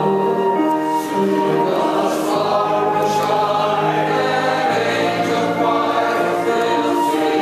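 Mixed church choir of men and women singing a slow Christmas anthem in long held chords that change about once a second, with a flute playing along.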